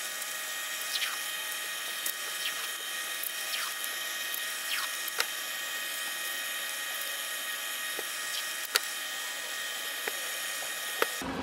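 Painter's tape being pulled and pressed onto a steel cleaver blade: scattered small clicks and short falling squeaks over a steady high-pitched whine, which cuts off near the end.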